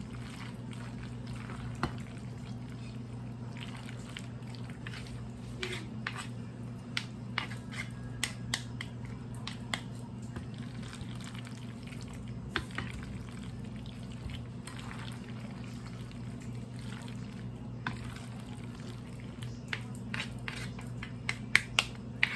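Wet clicks and occasional clinks of a utensil working through mayonnaise-dressed macaroni salad in a bowl, scattered throughout and busier near the end, over a steady low hum.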